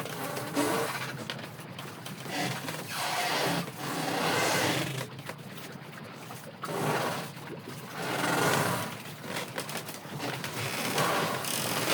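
Strong wind and rough surf: a broad rushing noise that swells and fades in surges every second or two.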